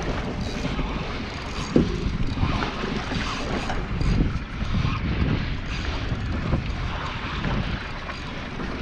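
Wind buffeting the microphone over the wash of the sea around a small boat, with one sharp knock just under two seconds in.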